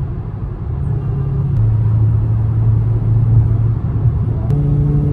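Car engine and road noise droning steadily inside the cabin while cruising, the low hum shifting in pitch about a second and a half in and again near the end.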